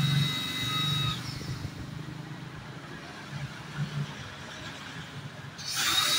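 Pressure washer spraying water onto a rubber intake hose: a high steady whine with spray hiss that stops after about a second when the trigger is released, then starts again near the end with a loud burst of spray hiss and the whine returning.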